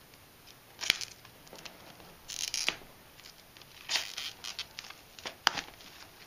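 Scissors cutting the plastic seal and shrink-wrap on a Blu-ray box, with short crinkling rustles of the plastic and two sharp snips or clicks, one about a second in and one about five and a half seconds in.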